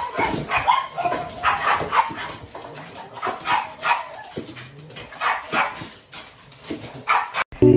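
Several pugs barking and yipping excitedly in short, irregular calls, a few each second.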